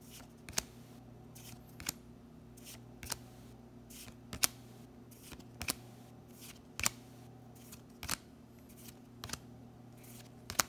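Trading cards being flipped through one at a time, each card slid from the back of the stack to the front with a short crisp snap, about one a second, over a steady low hum.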